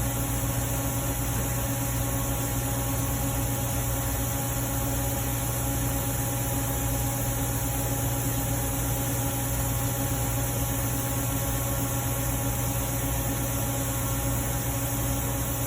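Steady background hum with an even hiss, unchanging throughout, with no distinct events.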